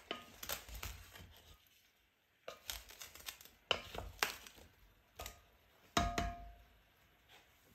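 Wooden spoon stirring chunks of beef and vegetables in an enamelled pot: the pieces shift and rustle, with several sharp knocks of the spoon against the pot, one about six seconds in ringing briefly.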